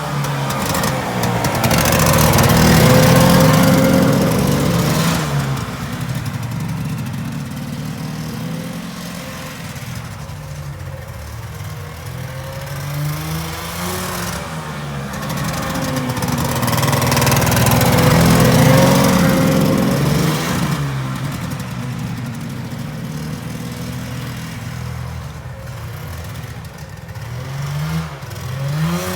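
Engine of a 1974 John Deere JDX8 snowmobile running, its pitch and volume rising and falling twice in long swells. It has an exhaust leak but still runs well.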